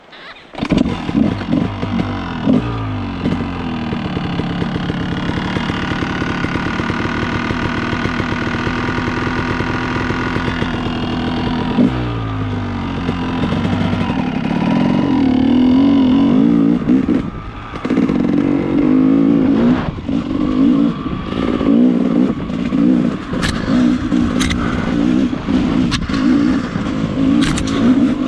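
Dirt bike engine starting up about half a second in, then running and being revved, its pitch rising twice. From about halfway it pulls under load with the throttle rising and falling, with a few sharp clicks near the end.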